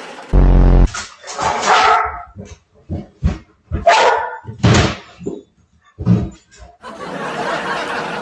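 A dog vocalizing back in a series of short barks and whining yowls. A short, loud low buzz comes just before the first call.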